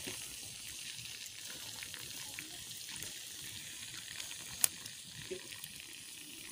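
Conch shells roasting over embers, the juices inside them boiling with a faint sizzling hiss and scattered small crackles, and one sharp pop about four and a half seconds in.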